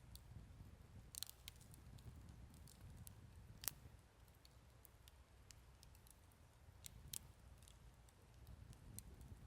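Wood campfire crackling faintly, with scattered sharp pops and snaps, the loudest a little under four seconds in, over a low steady rumble.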